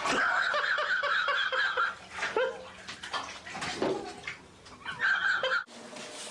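Water splashing and running in a bathtub, in uneven surges, cutting off suddenly near the end.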